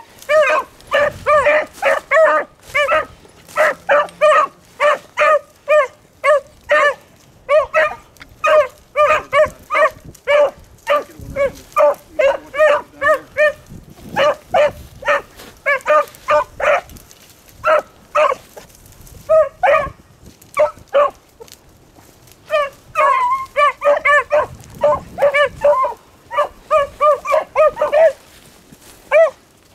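Beagle hounds giving voice as they work a rabbit's scent trail: a rapid run of short, high baying yelps, two or three a second, with a few brief breaks in the middle.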